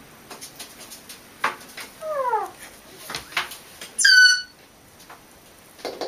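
A cat and a pet parrot calling, with light taps and clicks scattered between the calls. About two seconds in comes a short call that falls in pitch. About four seconds in comes a louder, higher call, the loudest sound here.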